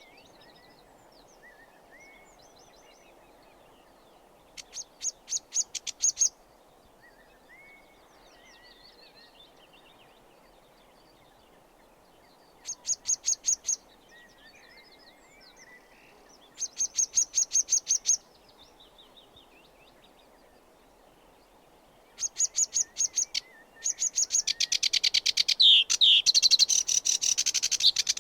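Sedge warbler singing: quiet scratchy chirps broken by four loud, fast rattling trills, then a louder, continuous run of varied song over the last few seconds.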